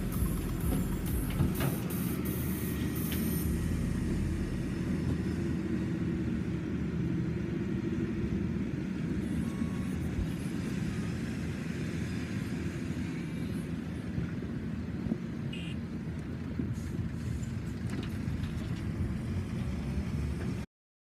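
Diesel engines of hydraulic excavators and a loaded articulated dump truck working, a steady low rumble. It cuts off suddenly just before the end.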